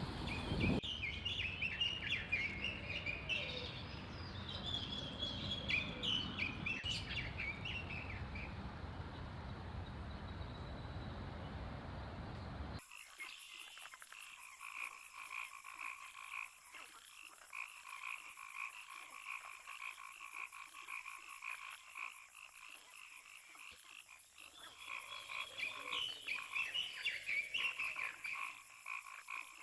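Small birds chirping over a low rumble of wind on the microphone; then, after an abrupt change, a steady chorus of frogs calling continuously, with more bird chirps near the end.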